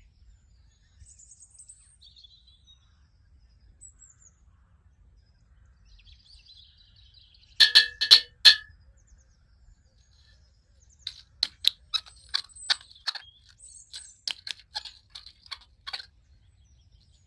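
Sharp clicks and taps of hard objects being handled: four loud clicks in quick succession about halfway through, then a run of irregular clicks and taps a few seconds later. Faint high chirps near the start.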